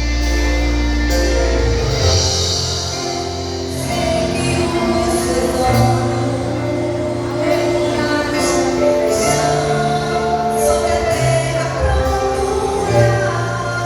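Group of voices singing a gospel worship song together with band accompaniment: held bass notes under the voices and cymbal strokes.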